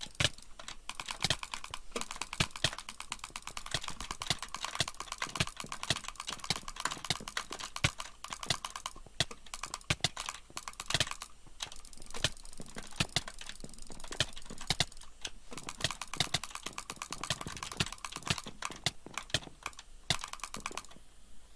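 Fast typing on a computer keyboard with soft, muted key presses, a steady stream of clicks with brief pauses now and then.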